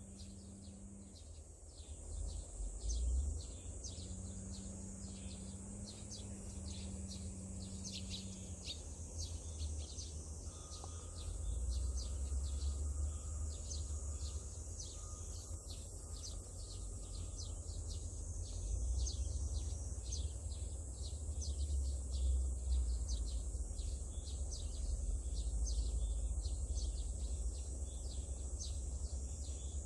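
Summer outdoor ambience: a steady high-pitched insect drone with many short bird chirps over it, on top of a continuous low rumble. A faint low hum runs through the first eight seconds.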